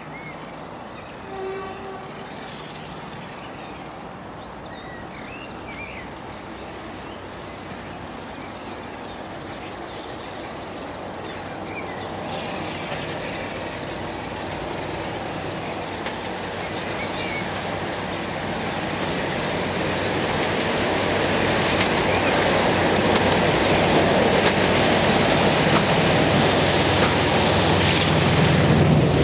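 Preserved diesel locomotive and its train approaching, the engine and the wheels on the rails growing steadily louder through the second half. Birds chirp in the first half, and a short tone sounds about a second and a half in.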